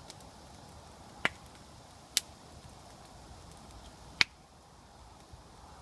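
Campfire wood popping: three sharp cracks, spaced irregularly, over a faint steady background.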